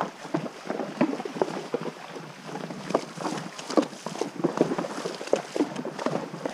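A horse's hooves splashing as it wades through a shallow river: an irregular run of splashes, several a second.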